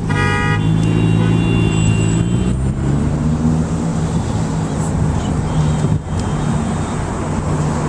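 Engine running steadily with a low hum. A brief pitched sound comes right at the start.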